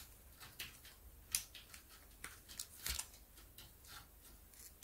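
Faint, scattered rustles and light clicks of a paper diamond painting sticker sheet being handled, with two slightly louder clicks about a second and three seconds in.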